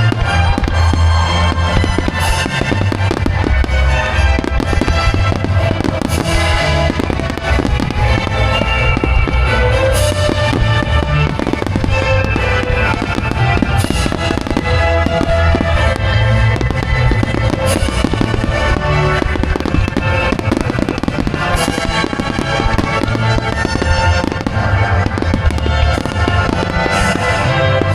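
A fireworks display: shells bursting with a bang every few seconds and dense crackling, over loud music with a steady bass beat.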